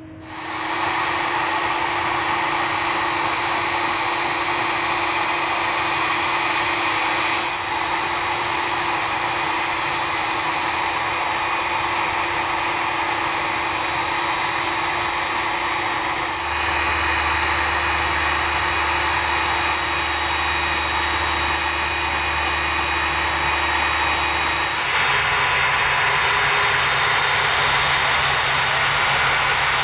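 Boeing 767-300ER freighter's GE CF6 turbofans running at taxi power: a steady jet rush with a high whine on top. The sound shifts abruptly in tone a few times and is a little louder near the end.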